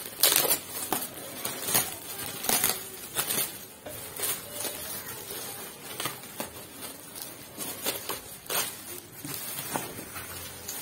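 Plastic packaging rustling and crackling in irregular bursts as a subwoofer is worked out of its box.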